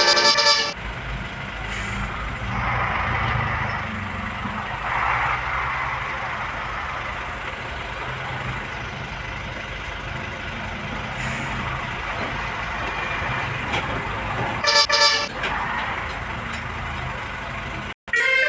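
Tour bus engine and traffic noise with short blasts of a multi-tone telolet horn, one ending in the first second and another about fifteen seconds in.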